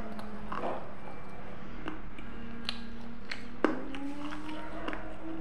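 Handling noise from a clip-on lavalier microphone: a few soft knocks and rubs, the sharpest about three and a half seconds in, over a steady low electrical hum.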